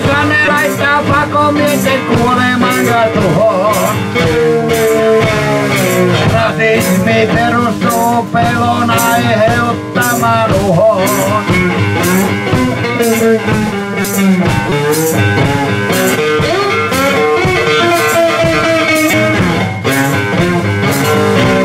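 A live blues-rock band playing: an electric guitar over a steady drum beat.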